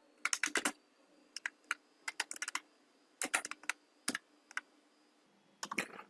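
Typing on a computer keyboard: irregular keystrokes, some single and some in quick runs of three or four clicks.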